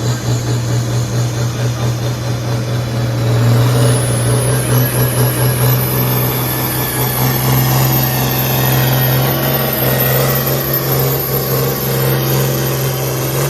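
A hot farm class pulling tractor's diesel engine running flat out under full load while it drags the weight sled, steady and loud, with a high thin whistle coming in about four seconds in and holding.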